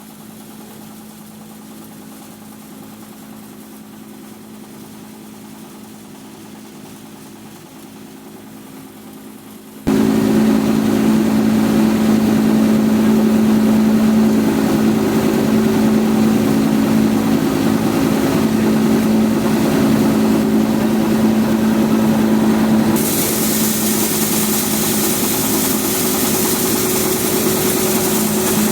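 Posho (maize) mill machine running with a steady hum, faint at first and then suddenly much louder about ten seconds in; the sound turns hissier for the last few seconds.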